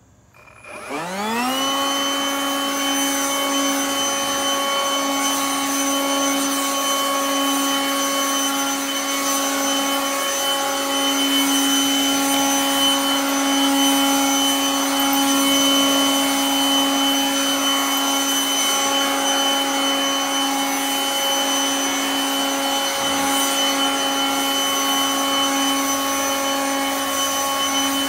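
Pressure-washing machinery starting up: a whine that rises in pitch over about a second, then runs steady at one pitch over a constant hiss.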